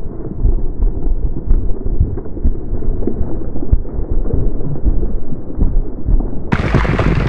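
Hoofbeats of galloping thoroughbred racehorses on a dirt track, heard as a deep, muffled rumble with irregular thuds. About six and a half seconds in the sound turns suddenly brighter and fuller.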